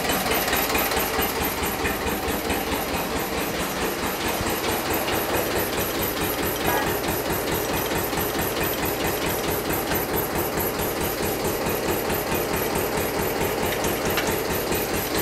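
Hanomag R16 tractor's diesel engine idling, with a steady, even knock of its firing strokes.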